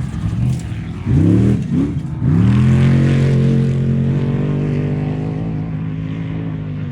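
Off-road race truck engine blipped through a few quick revs about a second in, then climbing to high revs and held there, its pitch sagging slowly toward the end.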